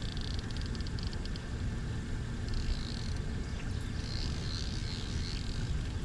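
Steady low rumble of wind and handling noise on the microphone, with birds chirping and trilling high above it.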